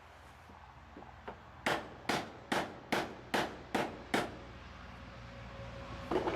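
Hammer driving a nail: a few light taps, then seven quick, even strikes in about two and a half seconds, and one more strike near the end.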